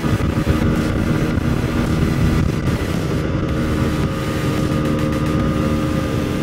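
Motorcycle engine running steadily at cruising speed, with wind noise on the microphone.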